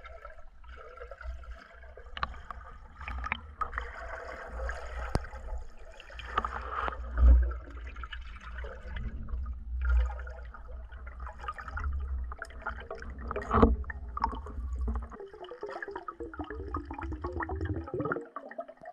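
Underwater sound picked up by a camera mounted on a speargun while a freediver swims: a low rushing and gurgling of water over the housing, with scattered clicks and knocks from the gun being handled. The low rush stops near the end.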